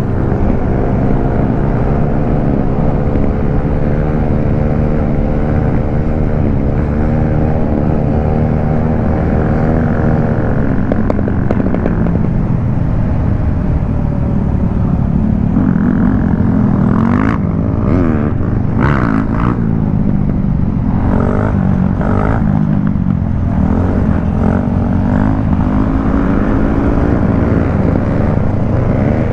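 Motorcycle engine running under way, its pitch climbing and dropping with the throttle through the first ten seconds, steadier for a few seconds, then uneven again with several short sharp noises in the second half.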